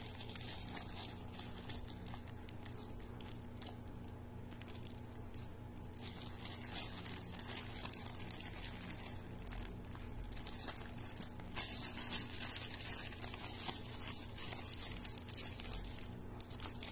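Shiny metallic gift-wrapping paper crinkling and rustling in irregular bursts as hands fold and press it around a gift, quieter for a few seconds about two seconds in.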